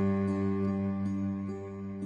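Soft background music with plucked, guitar-like notes over sustained tones.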